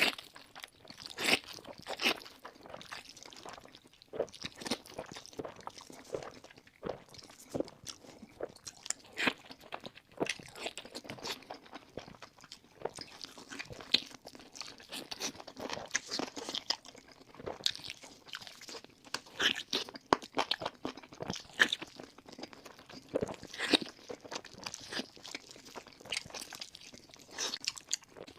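Close-up eating sounds: a person biting and chewing crunchy food, with irregular crisp crunches and wet chewing throughout, as when eating battered sweet and sour chicken with noodles.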